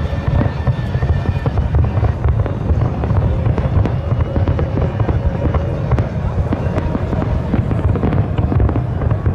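Fireworks display with many shells bursting in rapid, overlapping succession: a continuous low rumble of booms dense with sharp cracks and crackle, loud and unbroken.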